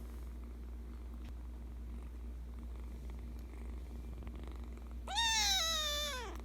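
Persian Chinchilla kitten purring steadily, then giving one long meow about five seconds in that falls in pitch.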